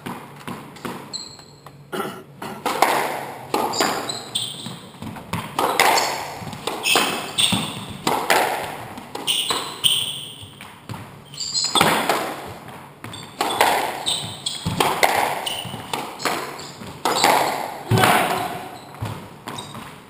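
Squash rally: the ball struck by rackets and smacking off the walls and floor, a hit every second or so, ringing in the enclosed court, with short high squeaks of shoes on the wooden floor.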